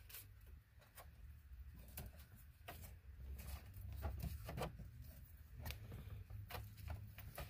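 Faint rustling and scattered light clicks of wiring and plastic trim being handled inside a dashboard opening, over a low steady hum.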